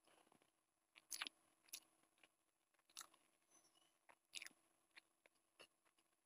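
Faint chewing and wet mouth smacks from eating Maggi instant noodles, with a handful of short clicks as a fork works through the noodles on the plate.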